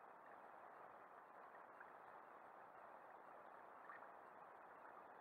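Near silence: a faint, steady, muffled hiss of choppy sea and wind around a small boat.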